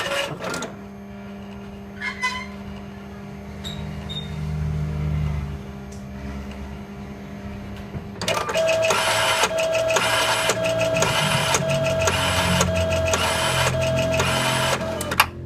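Polaroid P800 ID card printer running its cleaning cycle. First a low motor hum with a few faint clicks. About eight seconds in, the feed rollers start up with a steady whine and a rhythmic clatter, about two pulses a second, as they drive the cleaning card through the printer, stopping just before the end.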